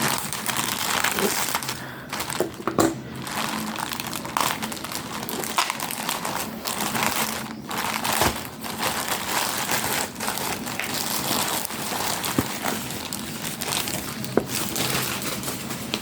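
Plastic packaging crinkling and rustling as it is handled and opened, with scattered sharp clicks.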